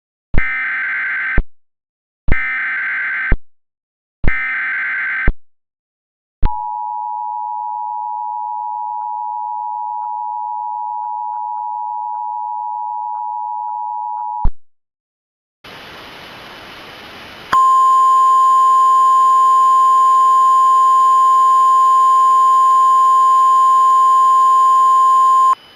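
Emergency Alert System tones. Three one-second bursts of screeching SAME header data open the alert, then the steady two-tone EAS attention signal sounds for about eight seconds. After a short hiss, a louder, harsher steady single tone plays for about eight seconds and cuts off.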